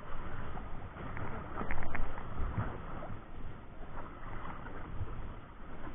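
Wind and sea noise buffeting an action camera's microphone out on open water, with a fluctuating low rumble and a couple of short clicks about two seconds in.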